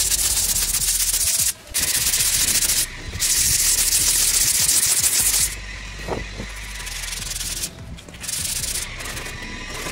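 Hand sanding of body filler on a car's rear quarter panel with a foam sanding block: a scratchy rasp of quick back-and-forth strokes, broken by two short pauses. It grows quieter about halfway through. This is a light sanding over guide coat to check the first coat of filler.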